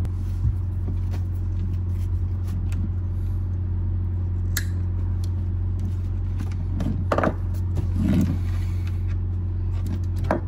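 A machine's steady low hum, like a motor running, throughout, with a few sharp clicks and brief handling noises as the live well pump's wires are cut.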